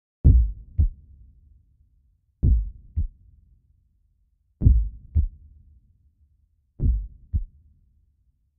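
Slow heartbeat sound effect on a soundtrack: four deep lub-dub double thumps, each pair about two seconds apart.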